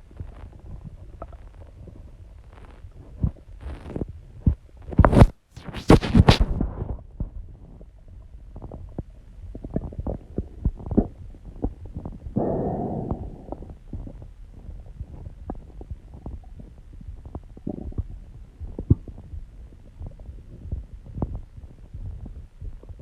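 Human stomach growling and gurgling, with irregular pops and a longer gurgle about halfway through. About five seconds in there are a few loud scraping bursts.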